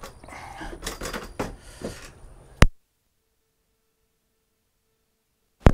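A couple of seconds of scattered knocks and rustling, then a sharp click and the sound cuts out to dead silence for about three seconds, ending in another sharp click: an audio dropout or edit cut in a recording with known microphone faults.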